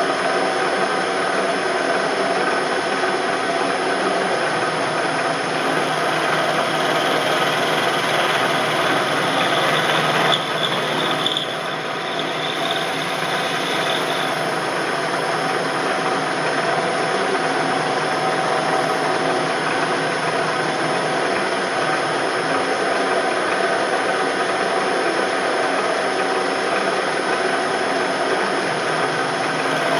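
An end mill taking light cuts in aluminum on a vertical milling machine: the spindle runs steadily under the hiss of the cut. A high squeal from the cutter comes in about eight seconds in and fades out around fourteen seconds.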